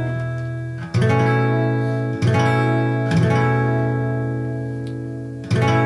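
Acoustic guitar in open D tuning, capoed at the second fret, strumming an A chord played as an A shape at the seventh fret. The chord is struck about a second in, again at about two and three seconds, and once more near the end, ringing on between strums.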